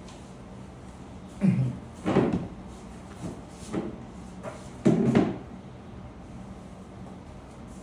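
A series of short, dull thumps and knocks over a low steady hum. The three loudest fall about one and a half, two and five seconds in, with fainter knocks between.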